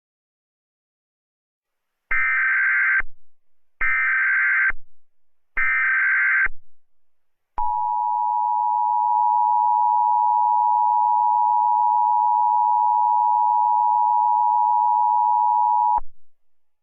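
Emergency Alert System signal: three short data bursts of the SAME header, then the two-tone EAS attention signal held steady for about eight seconds before cutting off suddenly.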